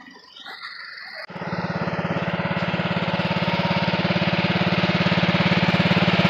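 Engine of a modified off-road riding lawn mower running close by with a fast, even pulse, cutting in abruptly about a second in and growing gradually louder.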